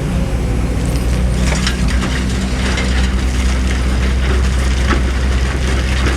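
Hydraulic excavator's diesel engine running steadily, with irregular metallic clicks and clanks starting about a second and a half in as the machine works.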